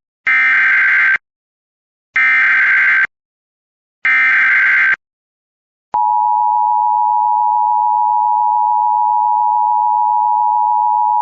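Emergency Alert System activation tones: three short bursts of SAME header data, each under a second long and about a second apart, which carry the coded alert. About six seconds in, the steady two-tone EAS attention signal starts and holds.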